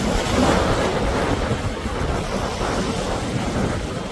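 Wind buffeting the microphone over rushing water from a passing cabin cruiser's wake. It swells about half a second in, and no distinct engine note stands out.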